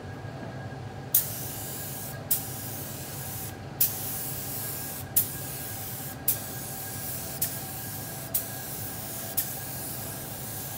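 DeVilbiss SRi Pro Lite gravity-feed spray gun hissing as it mists thin coats of clear lacquer onto leather. The hiss starts about a second in and comes in a run of about eight short passes, each opening with a sharp burst as the trigger is pulled. A steady low hum runs underneath.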